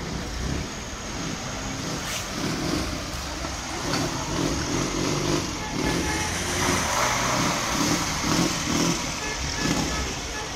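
Engines of old Soviet cars, a Lada sedan and a Moskvitch estate, idling and creeping past at walking pace in a slow line of traffic, with an uneven low throb.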